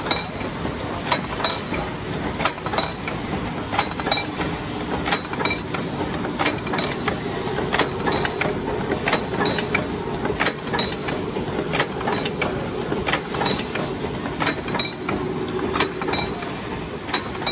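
Double-stroke cold heading machine for bolts, pins and rivets running: a steady mechanical hum with rapid, regular metallic clicks and knocks as it cycles, some strokes ringing with a short high ping.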